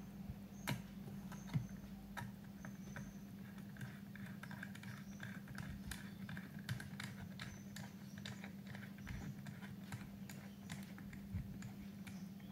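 Small precision screwdriver driving a screw into a Hornby 9F model locomotive's chassis: faint, irregular light clicks and ticks, with a scratchy grinding as the screw turns in the middle of the stretch.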